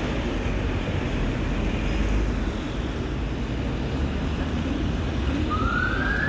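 Steady rumble of road traffic. Near the end a siren begins, its pitch rising.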